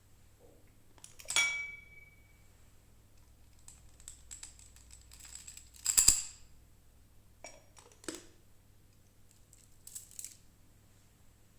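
Small objects being handled and set down, making scattered clicks and knocks. About a second and a half in, one clink leaves a short ringing tone, and about six seconds in there is a louder knock.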